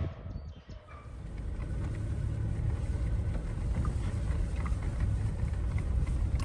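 Steady low rumbling noise that grows a little louder about a second in.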